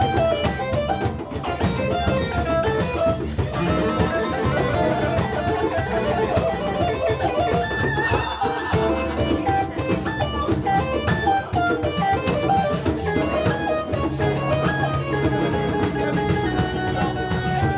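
A live band playing instrumental music at a jam session, with no singing heard.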